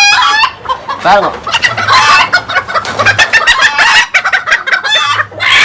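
A flock of chickens clucking and calling over one another, with a rooster crowing.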